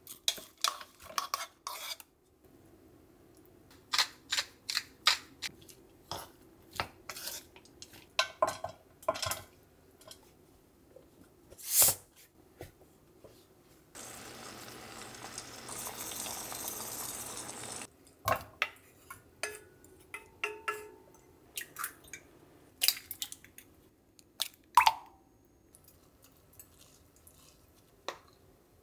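Kitchen cooking sounds: many short clinks and taps of utensils against bowls and dishes, with about four seconds of steady bubbling near the middle from lotus root simmering in its sauce in a small pot.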